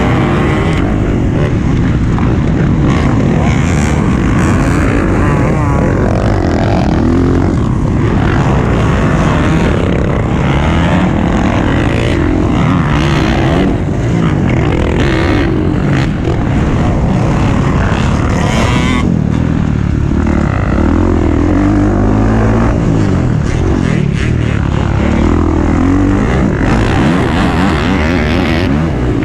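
Dirt bike engine under hard riding, revving up and down again and again as the throttle opens and closes.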